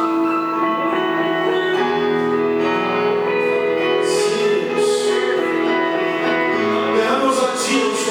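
Soft worship music: sustained, held chords, with a low bass note coming in about two seconds in.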